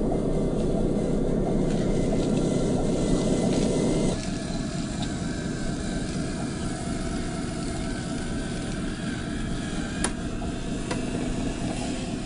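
Radio-controlled Mercedes Zetros 6x6 scale truck's electric motor and gearbox running as it crawls off-road, a steady whine over a noisy drone. The sound is louder for the first four seconds, then drops suddenly to a quieter level, and a single sharp click comes about ten seconds in.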